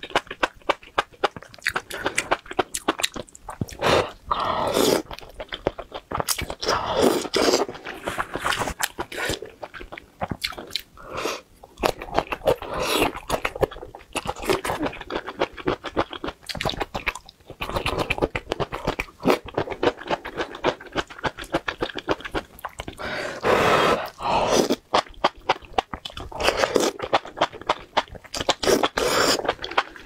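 Close-miked mukbang eating: a person chewing and biting food from a spicy hot pot, many quick crunching clicks, with a few longer slurps of noodles in between.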